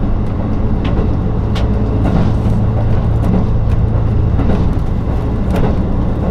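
KiHa 183 series diesel limited-express railcar under way: the diesel engine hums steadily over constant rail and running noise, with a few scattered clicks of the wheels over rail joints.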